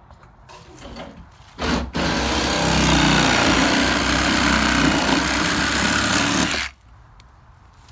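A power tool gives a short burst, then runs steadily for about five seconds and cuts off abruptly.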